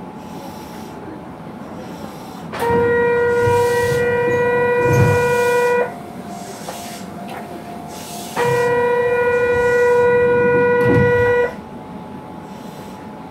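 A loud, steady pitched signal tone sounded twice, each time for about three seconds, with a pause of about two and a half seconds between, over the low hum of a train standing at a station.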